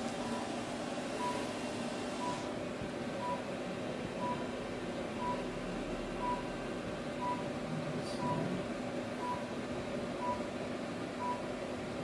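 Therapy laser unit giving short, high beeps about once a second while its handheld probe is applied to the neck, marking that the laser is emitting.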